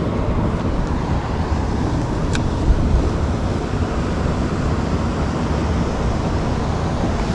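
Wind buffeting the microphone outdoors, an uneven low rumble throughout, with one faint click about two seconds in.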